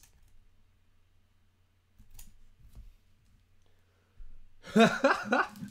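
Quiet room with a faint low hum and a few soft clicks of trading cards being handled. A man's voice starts loudly near the end.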